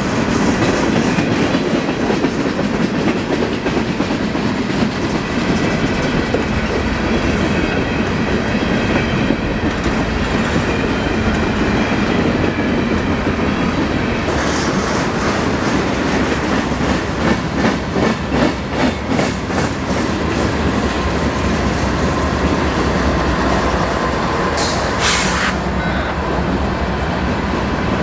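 Norfolk Southern freight train rolling past close by: a steady rumble of cars with wheels clacking over rail joints, quickening into a fast, even clatter midway.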